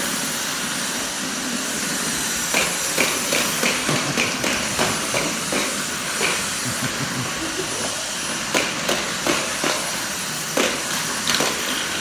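Dyson cordless stick vacuum running steadily with a high, even hiss. Over it, from a couple of seconds in, come irregular clacks and knocks, two or three a second, from children's plastic toy push vacuums.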